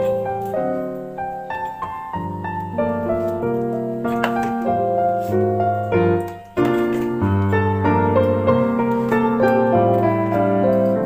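Background music played on piano, a steady run of melodic notes with a brief pause about six and a half seconds in.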